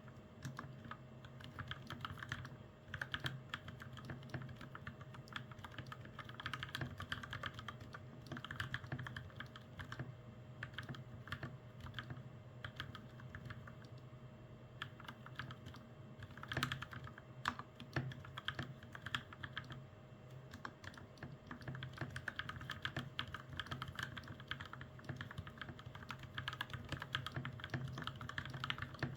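Continuous typing on a lubed mechanical keyboard fitted with Gateron Milky Yellow Pro linear switches and double-shot PBT keycaps: a steady stream of key clacks, with one louder clack about 17 seconds in.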